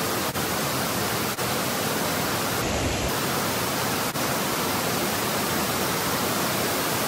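Waterfall pouring down inside a cave: a steady, even rush of falling water.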